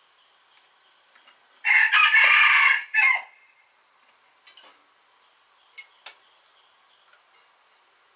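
A rooster crowing once, a long call about a second and a half in, ending in a short final note. A few faint knocks follow later.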